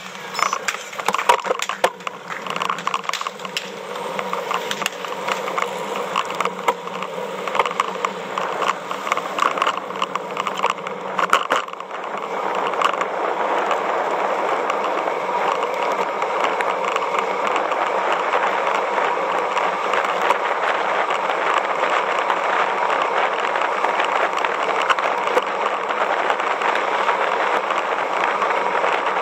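Road bike under way with a bike-mounted action camera. For about the first twelve seconds there is irregular clicking and rattling, then a steady rush of wind and road noise as the bike rolls along at speed.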